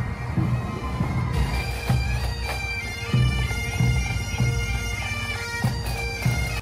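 Marching pipe band: Highland bagpipes playing a tune over their steady drones, with a bass drum keeping a regular beat about every half second.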